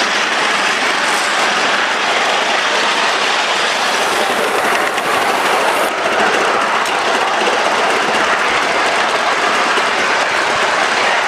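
3.5-inch gauge live-steam LBSC Maisie (GNR Atlantic) locomotive running along a miniature railway track, heard from close behind: a steady rush of exhaust and wheels on the rails. A high hiss drops away about six seconds in.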